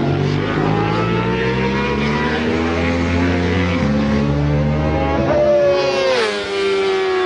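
600cc racing motorcycle engines running at high revs, their pitch climbing, dropping abruptly just before four seconds in, climbing again, then falling in a long glide about six seconds in.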